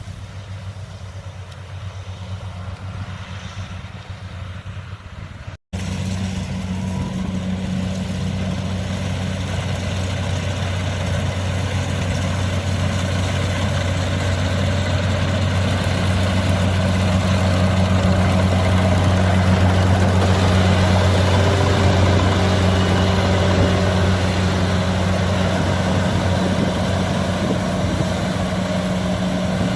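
Kubota DC-70 combine harvester's diesel engine running steadily with a low, even hum. The sound cuts out for an instant about six seconds in and returns louder, growing a little louder toward the middle.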